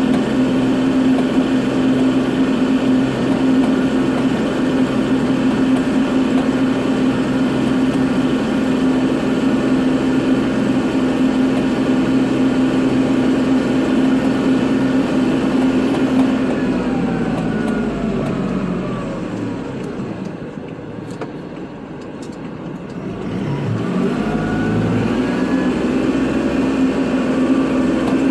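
Kubota tractor's diesel engine running steadily at high revs, then easing down to a low idle about two-thirds of the way through and revving back up a few seconds later.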